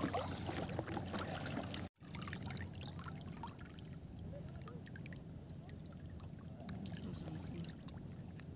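Shallow seawater lapping and trickling around someone wading, with small scattered splashes.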